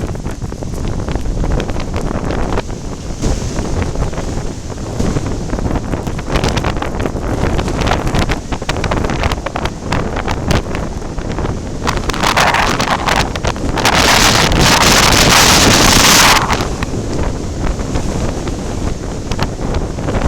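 Typhoon-strength wind buffeting the microphone in a constant low rumble, over rough sea at a harbour breakwater. About twelve seconds in, a loud rushing hiss builds, is loudest for about two seconds, and cuts off about sixteen seconds in.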